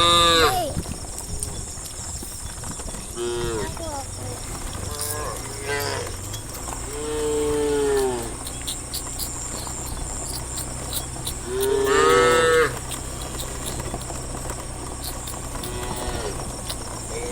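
Cows mooing: about six separate calls of differing pitch, short ones and longer drawn-out ones, the longest lasting about a second and a half, over a steady high-pitched drone.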